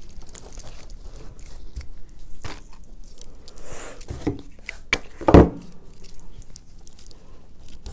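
Conifer and mistletoe sprigs rustling and crackling as hands handle and adjust a Christmas arrangement, with scattered small clicks. A brief louder thump comes a little past halfway.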